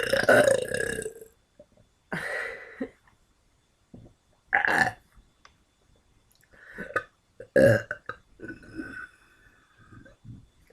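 A person burping on purpose: a long, loud burp that ends about a second in, then several shorter, quieter burps spaced a second or two apart.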